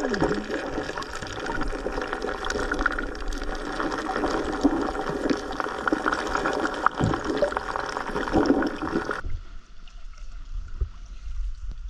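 River water heard from a submerged camera: a dense rushing and gurgling. About nine seconds in it cuts off suddenly to quieter water sounds above the surface, with small clicks and splashes.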